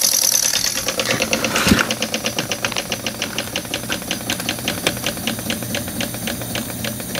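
PM Research twin-cylinder model steam engine running, its valves and exhaust beating out an even train of ticks at about five a second. There is a hiss in the first second and one louder knock. The beat then fades and slows slightly as the supply pressure drops from about 10 toward 6 PSI.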